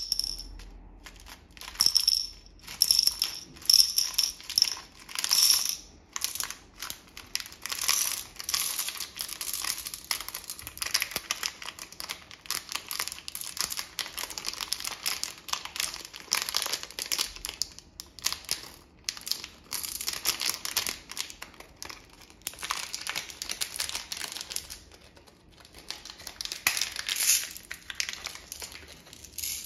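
A clear plastic candy bag crinkling on and off as it is handled and pulled from a plastic candy-toy tube, with a few short high squeaks in the first few seconds.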